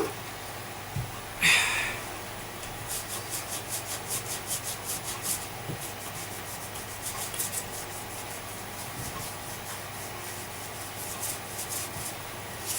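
Quick back-and-forth rubbing strokes, about five a second and in several spells, scrubbing grime off the body of a 1973 Hoover Junior vacuum cleaner, after a short swish about a second and a half in.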